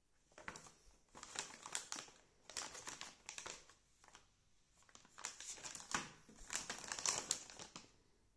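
Clear plastic dog-treat bag crinkling as it is handled and turned over in the hand, in three spells of crackling.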